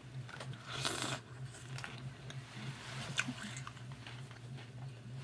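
Chewing a mouthful of Froot Loops with marshmallows in milk: irregular soft crunches, the strongest about a second in, over a steady low hum.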